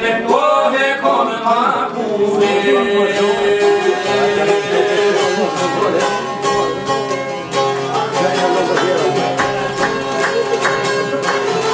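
Two long-necked Albanian lutes (çifteli) plucked together in a fast traditional melody over a steady drone note. A man's singing voice over the strings stops about two seconds in, and the instruments carry on alone.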